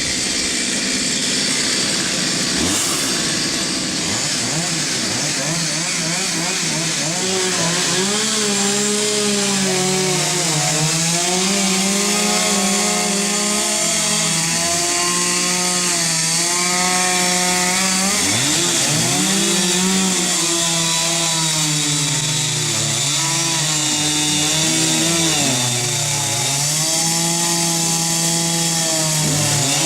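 Chainsaw running at high speed, its pitch dipping and climbing back again and again, over a steady hiss.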